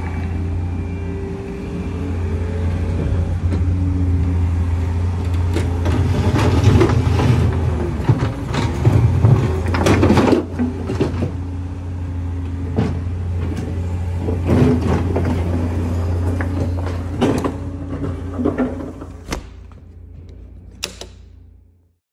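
Compact track loader's diesel engine running steadily while its bucket scrapes up and dumps brick pavers, with repeated knocks and clatter of the bricks. The sound drops away near the end and cuts off just before it.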